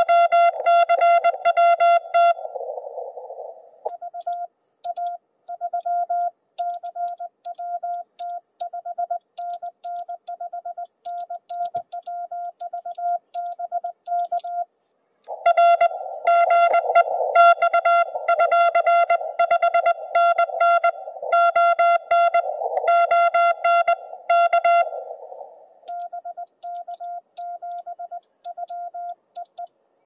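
Morse code (CW) from a ham radio transceiver: a single tone near 700 Hz keyed on and off in dots and dashes. Stretches of louder, fast keying alternate with fainter, sparser keying, with brief hiss where it switches over.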